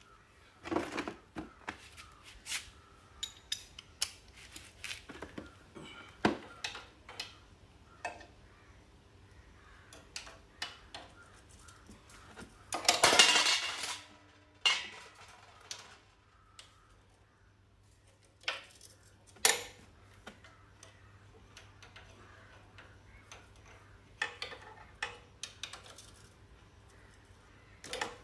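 Scattered metallic clinks and knocks of a 17 mm socket tool against the engine underside and a metal oil-drain pan as the oil drain nut of a Yamaha RX 100 is worked loose. There is one louder rush of noise lasting about a second near the middle.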